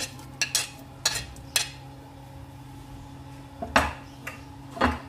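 Sliced onions pushed off a plate into a metal pressure cooker: a few sharp clinks of the plate against the pot, then two louder knocks near the end.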